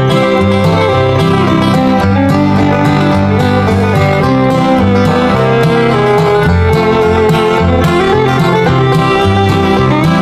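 Background music: an upbeat country-style tune on plucked strings with fiddle and a steady bass line.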